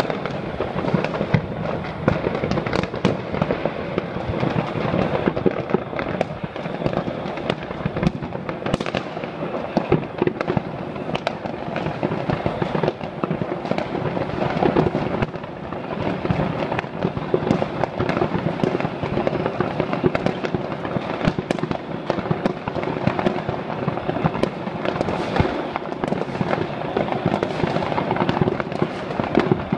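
Many consumer fireworks and firecrackers going off at once all across a city on New Year's Eve. Their overlapping bangs and crackling merge into a steady, dense din with no pause.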